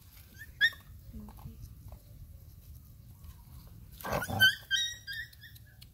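Puppy yelping: one short high-pitched yelp under a second in, then a rapid run of five or six high yelps from about four seconds in.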